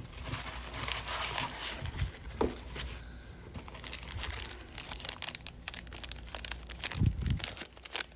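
Tissue-paper packing crumpling and a plastic parts bag crinkling as they are handled in a cardboard box, with many small rustles and clicks and a dull thump about seven seconds in.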